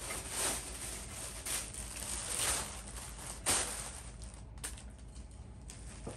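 Grey plastic packaging and the cardboard box rustling and crinkling as gloved hands unpack a cymbal, in a run of swishes with a sharper crinkle about three and a half seconds in.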